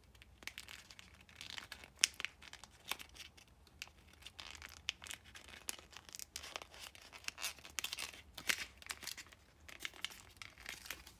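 Sheet of kami origami paper crinkling and crackling in the fingers as a flap is folded down and pushed into a pocket, in soft, irregular crackles.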